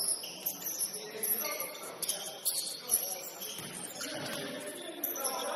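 Basketball game in a gym: indistinct players' voices, echoing in the hall, mixed with high sneaker squeaks on the court and a sharp knock about three seconds in.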